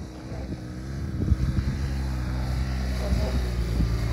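BMW GS adventure motorcycle's boxer-twin engine running under throttle as it rides through sand, holding a fairly steady pitch and growing louder over the first second.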